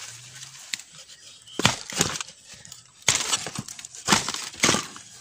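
Dry bamboo stems and leaf litter being handled and broken: rustling with several sharp cracks and knocks spread through the few seconds.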